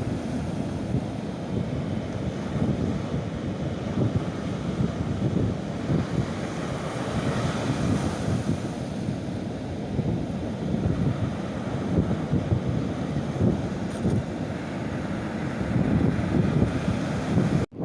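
Wind buffeting the microphone in gusts over the steady wash of sea waves.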